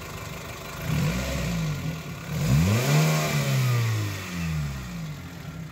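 Suzuki Swift 16-valve petrol engine being revved by hand at the throttle a few times: the pitch rises and falls back each time, the highest rev about halfway through, then it settles toward idle. The throttle body has just been cleaned, and the engine revs and returns smoothly.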